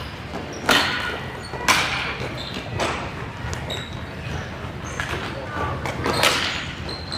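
Field hockey sticks striking the hard ball: a series of sharp cracks, three about a second apart, then a loud one near the end.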